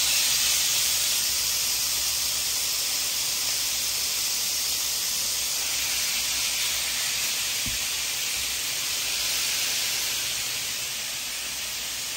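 Raw beef pieces sizzling in a hot nonstick skillet as they are spread out by hand: a steady frying hiss that eases a little near the end, with one faint knock in the pan.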